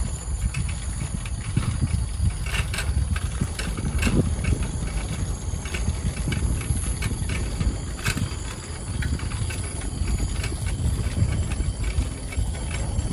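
Wind rumbling on the microphone and a bicycle rattling while riding over a paved path, with a few sharp clacks. A steady high-pitched trill of night insects runs underneath.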